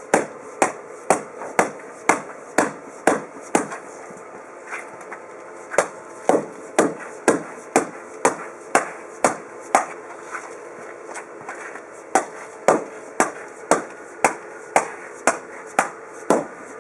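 Hammer blows driving an expansion-joint filler strip down into a concrete joint: steady, sharp strikes about two a second, twice pausing briefly before resuming.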